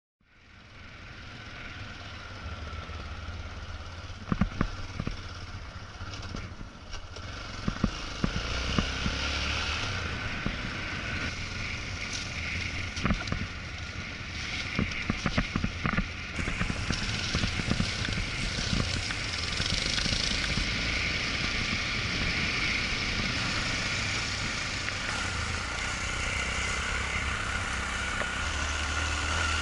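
Off-road motorcycle engine running at low speed on a rough gravel track, heard with rushing wind noise on an onboard camera. Scattered sharp knocks come through between about 4 and 16 seconds. The sound fades in over the first second or two.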